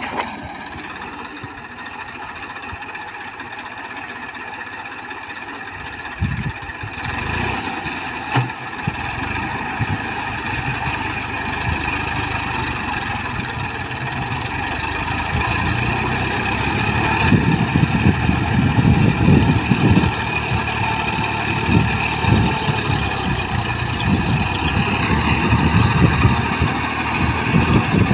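Massey Ferguson 241 tractor's three-cylinder diesel engine running steadily under load while working a flooded paddy field. It grows louder as the tractor comes closer.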